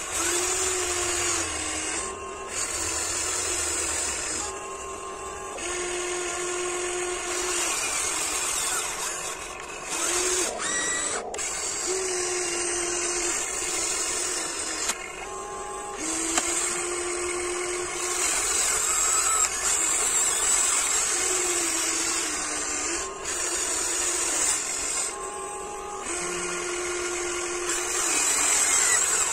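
Electric motors of a Huina 1594 remote-control excavator whining as it digs. There is a high whine over a lower hum, and the pitch shifts and cuts in and out every couple of seconds as different functions start and stop.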